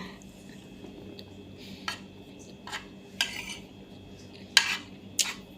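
Eating utensil clinking and scraping against a plate, about five short sharp strikes, the loudest roughly three quarters of the way through.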